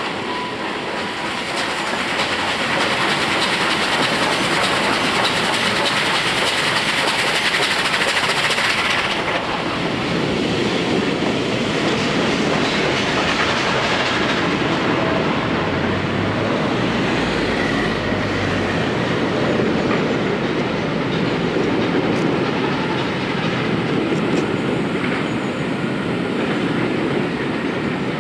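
Steam locomotive passing at speed, working hard, with a loud hiss for about the first nine seconds that cuts off sharply; then its train rolls past with wheels clattering over the rail joints.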